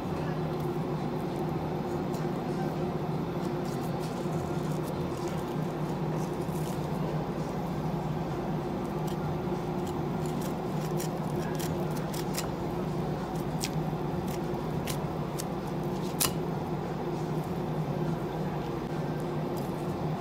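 Knife cutting along an amberjack's backbone and ribs during filleting, with scattered small clicks and scrapes of the blade on bone and one sharper click about three-quarters of the way through. A steady low machine hum runs underneath.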